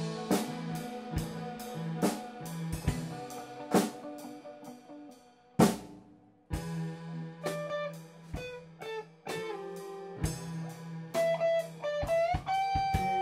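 Improvised instrumental rock jam on drum kit, electric guitar and keyboard, recorded raw. About five and a half seconds in, a loud hit is followed by a brief near-stop before the band comes back in; near the end a note slides up and is held.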